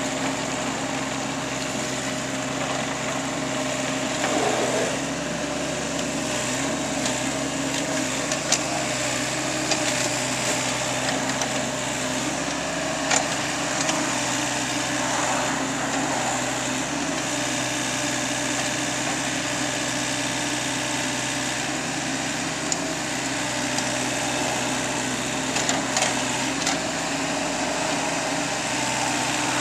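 Backhoe engine running steadily, with a few short knocks and clanks scattered through.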